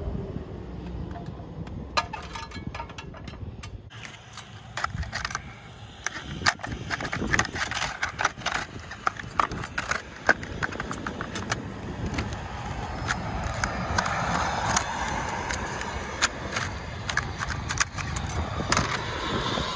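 Plastic pry tool scraping and clicking against a stucco wall and behind formed plastic sign letters, working them loose from their stud posts, in many short irregular strokes. A motor vehicle passes on the road a little past halfway.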